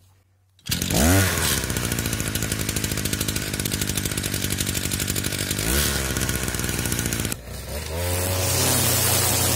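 Small petrol engine of a brush cutter catching less than a second in with a quick rise in revs, then running steadily with one brief blip of revs. Near the end it runs at higher speed as the spinning line head cuts grass.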